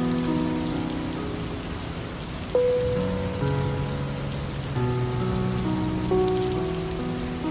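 Steady rain falling, with slow music over it: held chords, a new note struck every second or two and then fading away.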